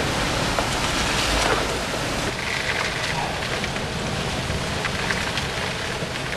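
Steady rain, heard from inside a vehicle, with a few faint clicks from equipment being handled in a hard storm case.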